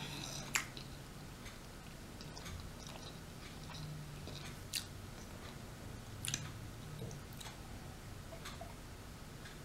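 A person chewing food close to the microphone, quiet, with a few sharp wet mouth clicks scattered through it.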